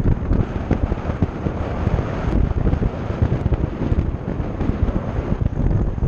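Wind buffeting the microphone of a camera riding along on a moving road bicycle: a steady, gusty low rumble that rises and falls in level.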